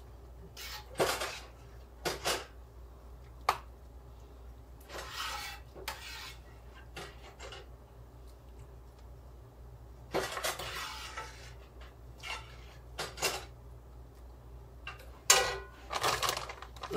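A metal spoon scraping and clinking against a skillet and a foil baking pan in scattered, irregular strokes as meat sauce is spooned out, with a longer scrape about ten seconds in. Near the end a plastic bag crinkles.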